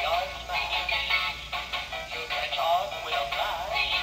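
Thin, tinny music with a synthesized singing voice wavering in pitch, as played through the small built-in speaker of an animated Halloween village display.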